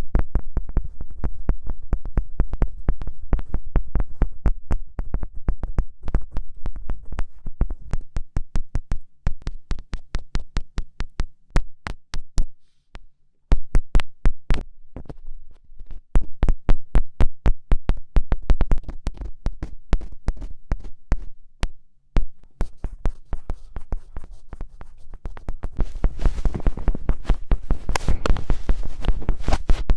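Rapid fingertip pokes and taps on a microphone, several a second with strong dull thuds under each click, with a short break about halfway through.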